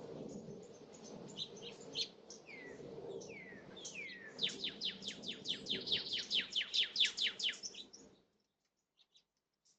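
Small birds chirping, with a few short downward-sliding calls and then a fast, even run of about five notes a second lasting some three seconds. The sound drops away to near silence near the end, leaving only a couple of faint chirps.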